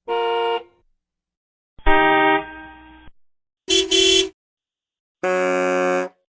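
A run of different vehicle horns sounded one after another, with silences between: a short honk, a blast that drops off into a fading tail, a quick double honk, then a steady blast of about a second.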